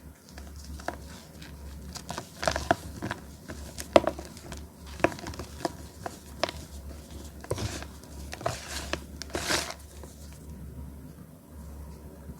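Soft cornflour-topped reformed chalk blocks being crushed by hand: a run of sharp crackles and crunches, with a few longer soft crumbling sounds about eight to ten seconds in.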